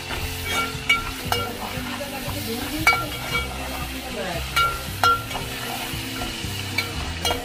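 Onions frying in oil in a metal pot with a steady sizzle, as a metal spatula stirs and scrapes through them. The spatula knocks against the pot's side a dozen or so times, each knock leaving a brief metallic ring. This is a curry's onion base browned to reddish, with ginger-garlic paste just added.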